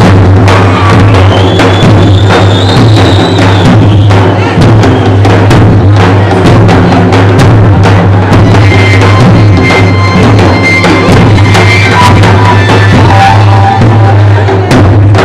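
Very loud traditional drumming: several large rope-tensioned double-headed drums (Albanian lodra) beaten with sticks in a fast, dense rhythm, joined by a small marching drum. A thin high melody line is heard over the drums at times.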